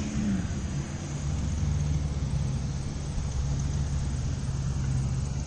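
Diesel engine of heavy earthmoving machinery running steadily: a low, even drone.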